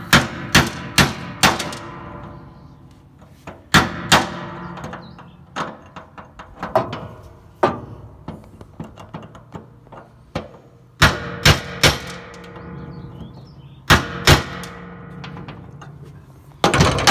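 Hammer blows on a cold chisel against a seized flathead screw on top of an old steel fuel tank, knocking the screw sideways to break it loose. Sharp metallic strikes come in bursts of two to five with pauses between, each leaving the metal ringing.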